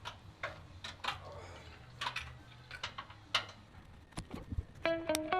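Scattered light clicks and taps over a faint low hum, irregularly spaced. Guitar music comes in near the end.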